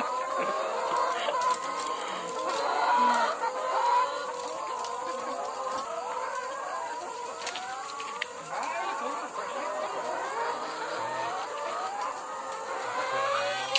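A house full of caged brown laying hens clucking and calling together, a steady chorus of many overlapping wavering calls.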